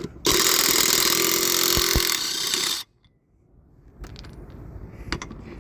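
Impact wrench running in one steady burst of about two and a half seconds, loosening a lug nut to take the wheel off, then stopping abruptly. Quieter rattling with a few clicks follows near the end.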